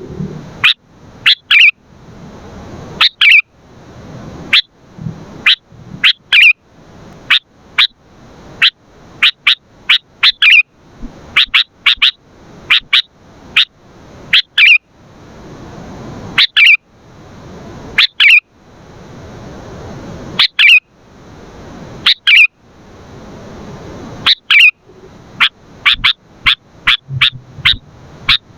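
Sooty-headed bulbul calling loudly and repeatedly: short, sharp, sweeping notes, singly and in quick runs of two to four, one after another throughout.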